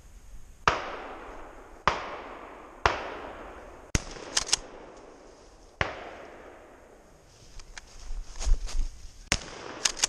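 Shotgun fired four times, each shot a sharp crack followed by a long echo that fades over a second or more. The first three come about a second apart, the fourth about three seconds later. Shorter sharp clicks and knocks fall between and after the shots.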